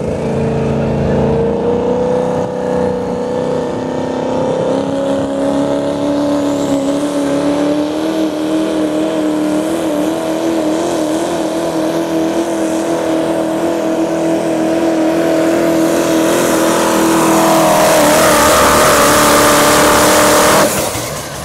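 Diesel pickup truck's engine at full throttle, pulling a sled. Its revs climb slowly and wobble in pitch partway through, and it grows louder with a rising hiss as the truck comes closer. The throttle cuts off suddenly near the end, as the pull ends.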